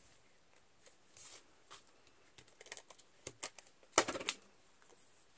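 Faint irregular clicks and scrapes of a tape runner laying adhesive onto a small punched paper piece, with a louder clatter about four seconds in.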